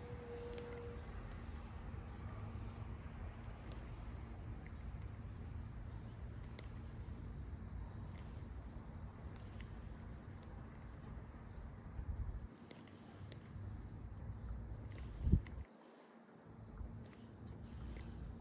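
Faint outdoor ambience: a steady high-pitched insect trill over a low rumble of wind on the microphone, with one short thump about 15 seconds in.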